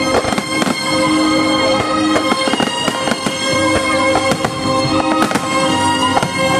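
Fireworks going off, with many irregular sharp bangs and crackles, over music with long held notes.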